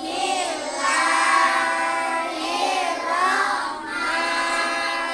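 Children chanting in unison in a sing-song melody, with long held notes.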